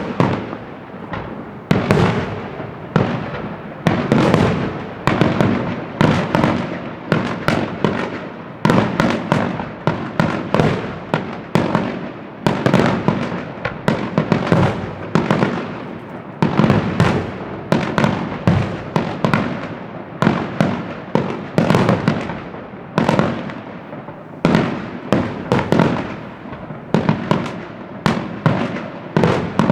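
Fireworks display: a continuous barrage of aerial shell bursts, about one to two bangs a second, each trailing off with a crackle before the next.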